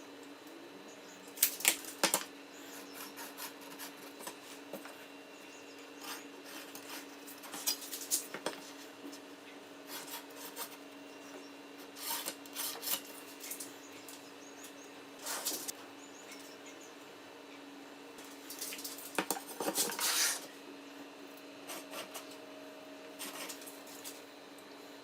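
Intermittent clinks, clatters and rubbing of hard, likely metal, objects being handled, over a steady low hum. The loudest clusters come about 1.5 s in, around 8 s, 12–13 s, 15.5 s and 19–20.5 s.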